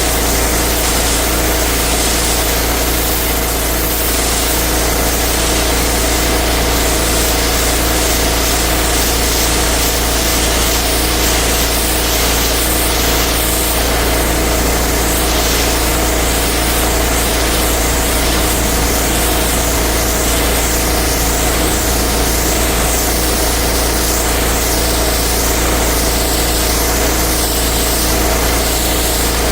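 Pressure washer engine running steadily under load, with the high-pressure water spray hissing against the driveway. From about ten seconds in the hiss swells and fades about once a second as the spray sweeps back and forth.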